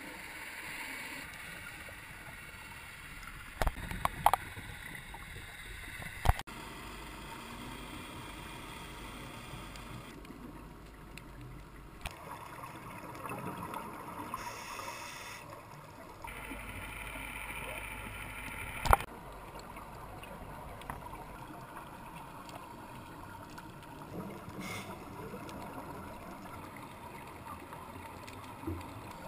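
Muffled underwater ambience heard through a diving camera's housing: a steady hiss that shifts in level a few times, with a few sharp clicks.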